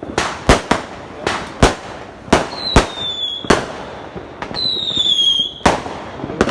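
Fireworks going off: a string of sharp bangs at irregular intervals, with two whistling shells whose whistles fall slightly in pitch, each lasting about a second.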